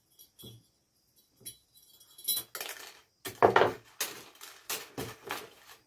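Thin metal craft wire being handled and coils of it moved on a wooden table: scattered light clinks, rattles and scrapes, busiest in the second half, the loudest about three and a half seconds in.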